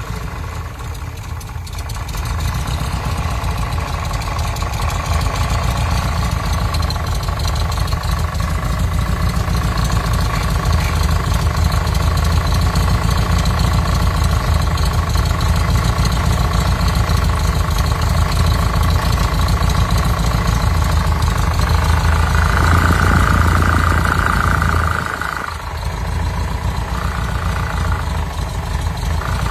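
Volkswagen Type 3 air-cooled engine in a Combi van idling with an abnormal noise that is present only at low idle and fades when revved; the mechanics judge it to be internal to the engine. A higher-pitched tone comes in about 22 seconds in, the sound drops briefly, then the tone returns in patches.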